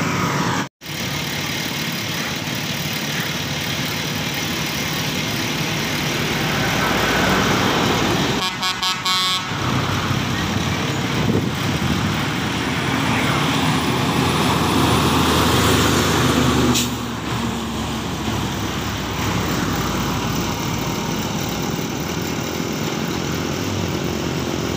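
Road traffic passing close by: heavy trucks and cars driving past with engines and tyres running steadily, broken by a brief dropout about a second in.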